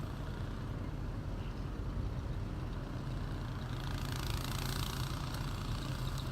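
A vehicle engine running steadily, a low, even rumble, with a hiss that swells about two thirds of the way in.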